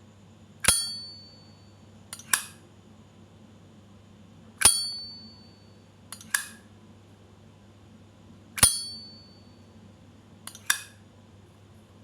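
Zippo 200 brushed chrome lighter lid flicked open and snapped shut three times. Each cycle is a sharp metallic click with a brief ringing ping, then a quicker double click about a second and a half later.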